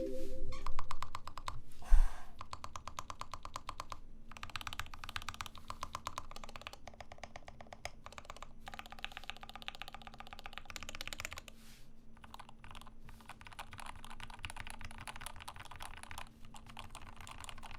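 Continuous fast typing on a Rama M65-B mechanical keyboard built with lubed Gateron Ink switches, a brass plate, a mute mount and an internal dampener: a quick run of muted keystrokes. One louder knock comes about two seconds in.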